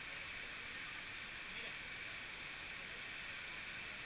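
Steady rush of a waterfall pouring into a rock pool, an even hiss with no breaks.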